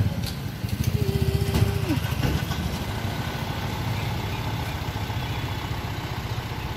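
A motor vehicle's engine idling close by, a steady low rhythmic pulse that is strongest in the first couple of seconds and then settles. A brief held tone sounds about a second in and drops away.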